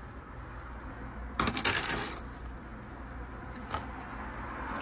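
A brief clatter of small hard knocks and rattles, a cluster of sharp clicks lasting under a second about a second and a half in, from plastic tubs and a turkey baster being handled, over a faint low hum.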